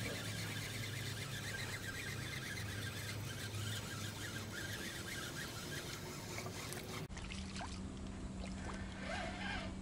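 Water splashing as a hooked crucian carp is reeled in to the pier, with the fine rapid ticking of a spinning reel being wound.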